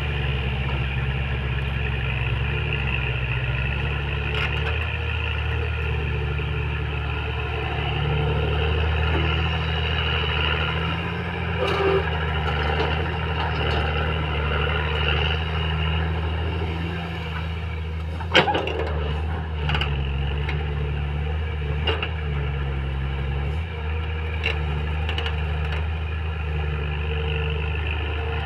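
Komatsu PC200 hydraulic excavator's diesel engine running steadily under digging and swinging load, its tone shifting as the hydraulics work, with a sharp knock about 18 seconds in.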